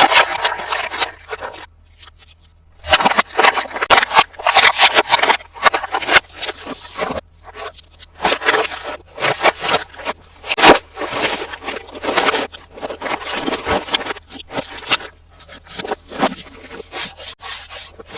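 Close-miked hands handling a plastic toy and its packaging: scraping and rubbing in irregular bursts with many small clicks, pausing briefly about two seconds in.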